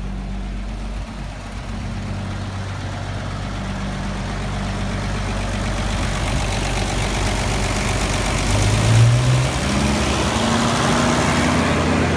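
Engine of the REO 2½-ton military truck running, brought up to a fast idle; its level climbs steadily, and a rising tone comes in near the end.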